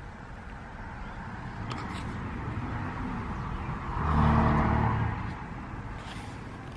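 A car passing by outside, its engine and tyre noise swelling to its loudest about four seconds in and then fading away.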